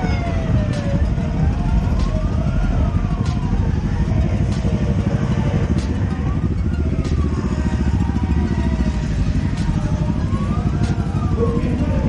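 A siren wailing, its pitch rising and falling slowly about every four seconds, over the low, steady rumble of engines in slow traffic.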